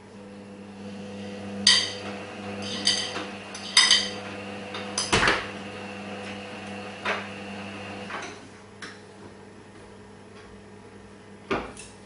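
Clinks with a short metallic ring and knocks from a tumble dryer as a dog pulls washing out of it, over a steady low hum. Several ringing clinks come in the first four seconds, with the loudest knock about five seconds in.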